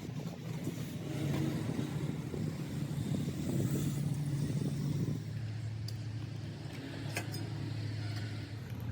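An engine or motor running steadily with a low hum, settling to a lower pitch about five seconds in, with a few light clicks near the end.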